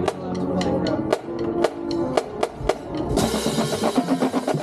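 Marching band playing: sharp drum strikes from the drumline over held horn notes, with a bright sustained wash, like cymbals, coming in about three seconds in.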